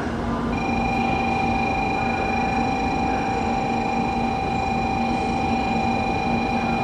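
A single steady electronic buzzer tone starts about half a second in and holds without a break, typical of a Japanese station's departure buzzer, over the low hum of the platform and a waiting train.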